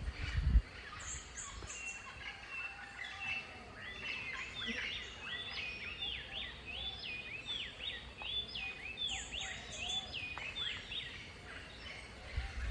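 Birds calling: a fast run of short, repeated high calls in the middle, with thin higher chirps near the start and again later. A low thump about half a second in.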